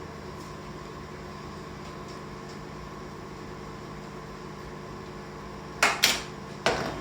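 Steady hum of a kitchen appliance, then near the end three sharp clatters of kitchenware close together, the last ringing briefly.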